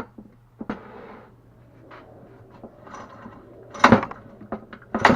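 Recoil pull-starter of a vintage Tecumseh AH58 chainsaw being yanked to crank the engine for a spark check: a few handling knocks, then two sharp pulls near the end, about a second apart.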